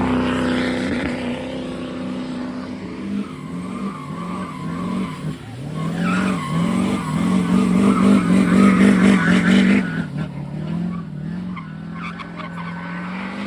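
Truck doing a burnout: engine revving up and down while the tires spin and squeal, loudest from about six to ten seconds in, after which the revs drop to a steadier level.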